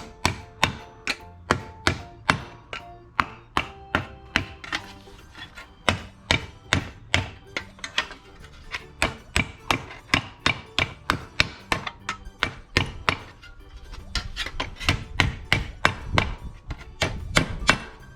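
Hammer blows on a piece of steel sheet being shaped into a patch panel, a steady run of sharp strikes about two to three a second, coming faster and heavier near the end.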